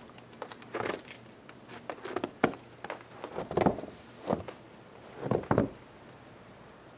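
Footsteps crunching in fresh snow a few inches deep, about half a dozen irregular steps.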